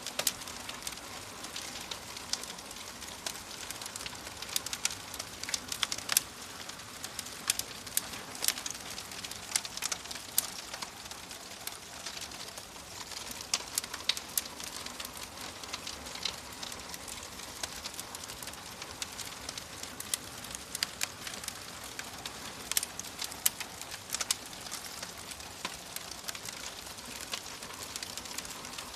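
Wood fire burning in a fireplace: a steady soft hiss with frequent sharp, irregular crackles and pops.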